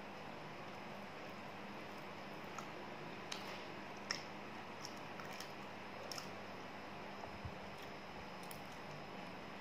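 Quiet chewing of a soft steamed bun: scattered small, sharp mouth clicks over a steady faint hiss, the strongest clicks about three and four seconds in.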